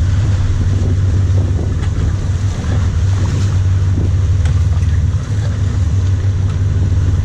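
A sportfishing boat's engines running at a steady low drone, with water rushing along the hull and wind buffeting the microphone.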